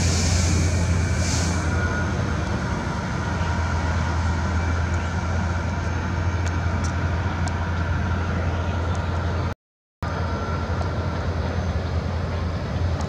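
Steady low rumble of distant urban traffic and machinery, with two brief hisses near the start. The sound cuts out for a moment about ten seconds in.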